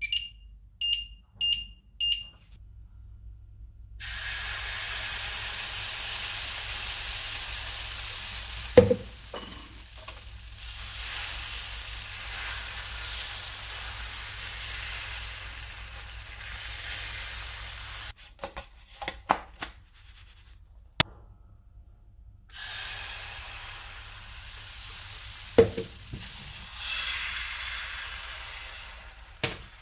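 An induction hob's touch controls beep four times in quick succession. Then crepe batter sizzles steadily in a hot non-stick pan, broken by a few sharp knocks and clicks, and a short quiet gap before the sizzling starts again.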